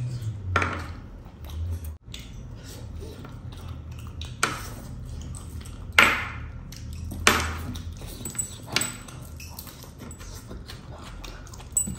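Eating by hand, close to the microphone: wet chewing and lip smacks, with fingers squishing rice and curry against a plate. About five short sharp smacks, the loudest about six seconds in.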